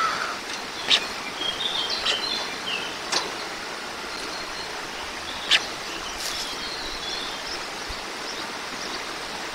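Outdoor village ambience: a steady background hiss with small birds chirping briefly a few times, and three sharp clicks spread through it.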